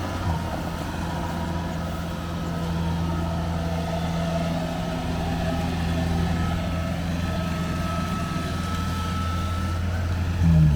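Combine harvester's diesel engine running steadily at a constant speed, a low even hum.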